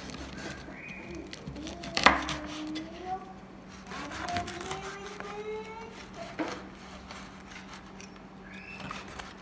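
A few sharp knocks of a knife on a wooden chopping board, the loudest about two seconds in, with voices in the background.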